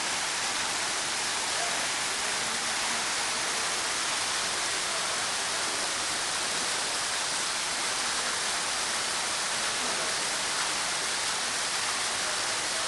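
Portable artificial waterfall running, a steady hiss of falling water splashing down.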